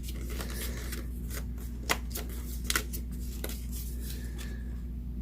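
Die-cut cardstock pieces being handled and sorted by hand: light paper rustles and scattered taps, over a steady low hum.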